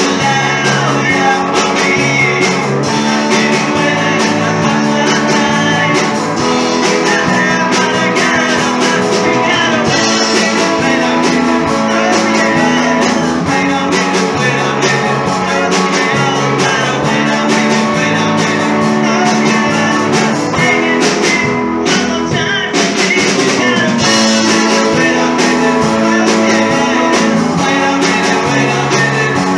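A rock and roll band playing, with guitars, a drum kit and singing.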